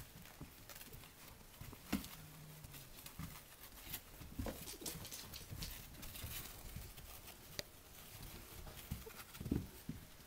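Pug puppies scrambling about on a fleece blanket and a puppy pad: scattered light paw taps, scuffs and soft rustles, with a couple of louder thumps, the loudest near the end.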